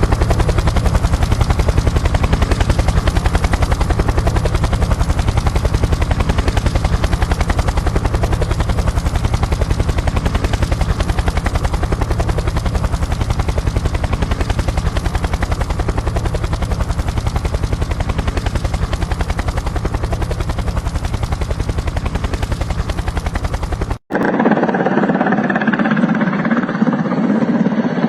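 Helicopter rotor in a fast, steady chop over a deep drone. Near the end it cuts off abruptly to a different steady mechanical hum.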